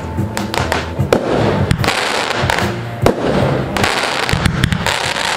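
Consumer aerial fireworks going off in quick succession: many sharp bangs from launches and star bursts, several a second at irregular spacing, over a continuous noisy rush.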